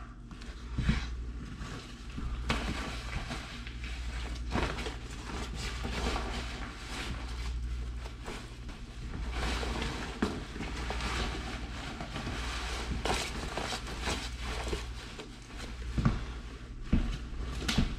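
Clothing rustling and swishing as jacket layers are pulled on and adjusted, with a few sharp thumps, over a low steady hum.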